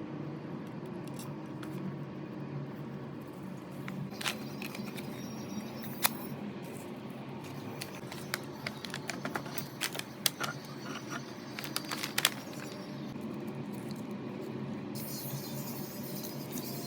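Scattered light clicks and taps, the loudest about a third of the way in and again near the end, over a steady low hum.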